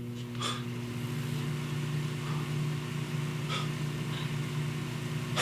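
Microwave oven running with a steady electrical hum, with a few faint clicks about half a second in and again near the end.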